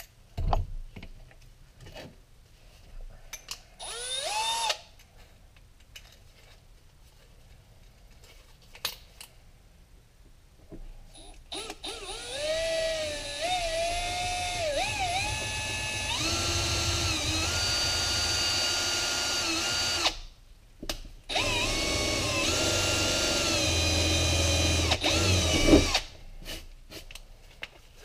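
Cordless drill boring a hole through a plastic trim panel. A short whirr comes about four seconds in, then two long runs of drilling with a brief stop between them. The motor's whine steps up and down in pitch as the speed changes.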